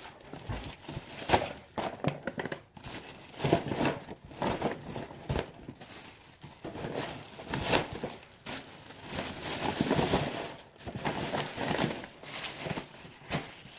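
Packaging crinkling and rustling in irregular bursts as store-bought items are handled and shown.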